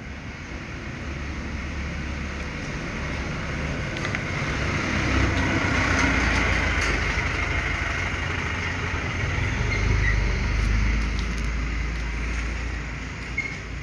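A motor vehicle engine running nearby: a steady low rumble with a hiss that swells and eases twice. A few light clicks sound over it.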